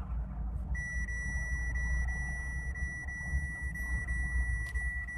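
A steady, high electronic beep tone starts about a second in and holds without a break, over the low rumble of road noise inside a moving car's cabin.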